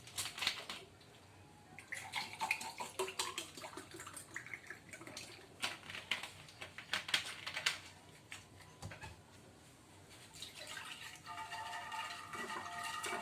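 A glass of water poured over lemon peels and sugar in a bowl, splashing and trickling unevenly. Soft background music with held tones comes in near the end.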